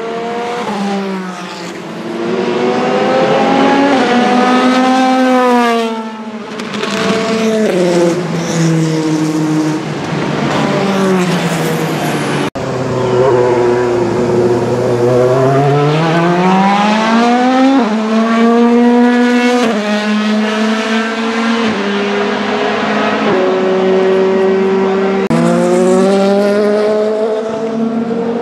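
Vanwall Vandervell 680 Le Mans Hypercar's Gibson GL458 4.5-litre V8 racing engine at race pace, its pitch rising under acceleration and falling off the throttle, with sudden jumps at each gear change. The sound breaks off abruptly about halfway through and picks up again at a different pitch.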